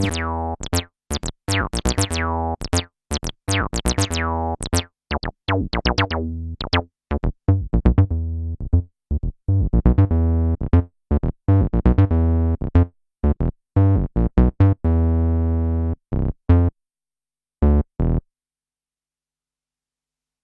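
Behringer TD-3 analog bass synthesizer playing a sequenced acid bassline of short, staccato notes. The notes start bright and buzzy and grow duller as the pattern goes on. The pattern thins out and stops about eighteen seconds in.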